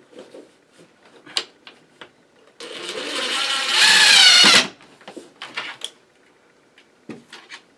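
Cordless drill driving a screw: the motor runs for about two seconds, louder in its second half, then stops suddenly. Small clicks and knocks of handling come before and after.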